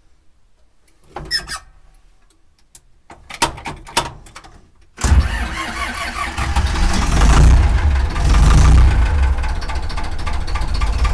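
Ursus C-360 tractor's four-cylinder diesel engine being started: a few knocks and short bursts of noise, then the engine catches about five seconds in and runs loudly, rising in level for a couple of seconds before settling.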